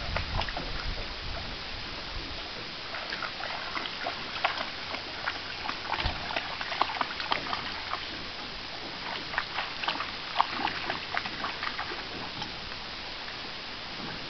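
A boxer dog wading through shallow water, its paws making a run of small splashes and drips that thin out near the end as it stops.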